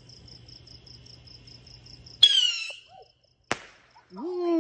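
A handheld aerial firework launching with a sudden, brief high whistle about two seconds in, then a single sharp bang about a second later as it bursts overhead. Crickets chirp faintly underneath.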